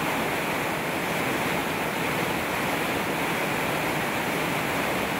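Waterfall and churning whitewater rapids rushing steadily.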